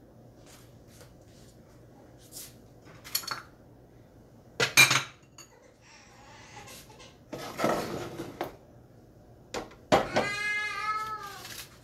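Knocks and clatters of kitchenware, the loudest about five seconds in, then a cat's single drawn-out meow near the end, falling in pitch as it ends.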